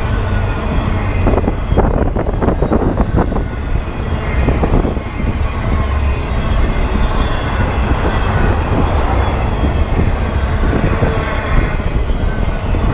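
Intermodal freight train of truck trailers on flatcars passing close: a steady rumble of steel wheels on the rails, with a run of clattering about two seconds in.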